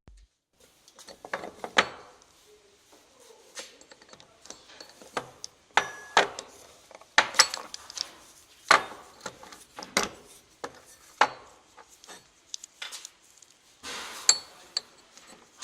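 Irregular light metal clicks, taps and knocks of tools and parts being handled while an Audi A4 (B7 8E) belt idler pulley is taken off; its worn bearing came apart from the pulley easily.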